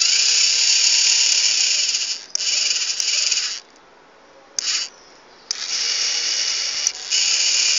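Small electric gear motors of a model railway barrier and track-switching rig running in short stop-start bursts as they swing the barrier arms: several runs of one to two seconds each, with a brief blip about halfway through.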